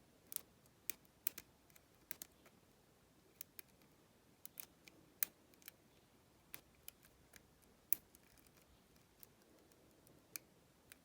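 About twenty small, sharp metallic clicks and ticks at irregular intervals as a lock pick works the five pin stacks of an Abus 70AL aluminium padlock.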